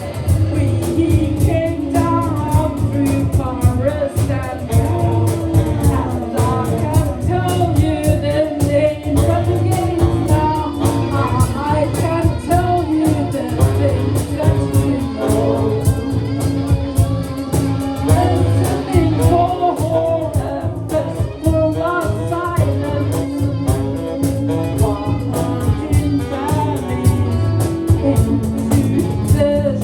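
A live psychedelic rock band playing, with drums and a wavering singing voice over a steady low backing.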